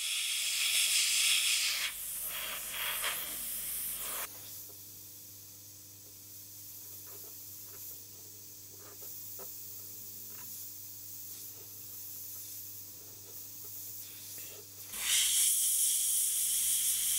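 Airbrush hissing as compressed air and paint spray from the nozzle, loud for the first four seconds or so and again from about fifteen seconds in. In between, the hiss stops abruptly, leaving a low steady hum with a few faint ticks.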